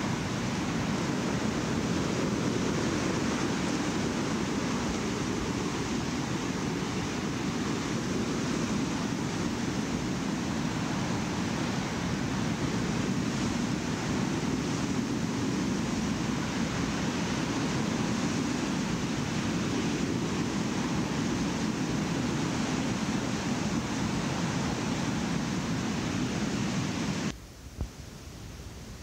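Steady rushing noise on a black metal demo cassette after the music stops. It cuts off suddenly near the end, leaving fainter tape hiss and a single click.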